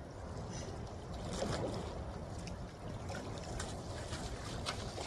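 A steady low rush of water and wind noise, with a few faint scattered clicks and scrapes.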